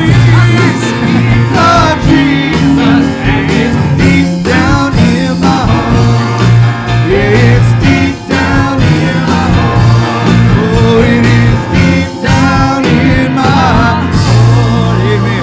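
Live worship band playing a gospel song, with long held bass notes under wavering vocal or lead lines and some singing.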